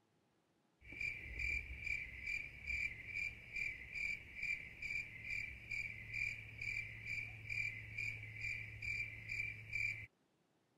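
Cricket chirping sound effect, an even high-pitched trill pulsing about three times a second over a low hum. It starts about a second in and cuts off cleanly near the end, dropped in over otherwise muted audio.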